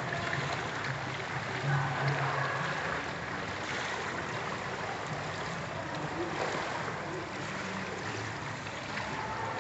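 Water splashing and churning steadily as a swimmer strokes through a pool.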